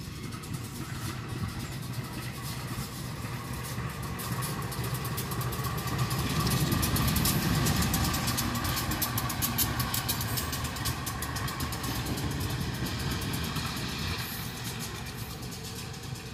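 A diesel-electric locomotive running light at shunting speed, its engine rumbling steadily. It grows louder to a peak about halfway through as it passes, then eases off as it moves away.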